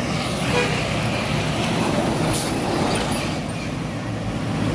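A bus passing close by, its engine and tyres making a loud, steady rumble, with a short high hiss about halfway through.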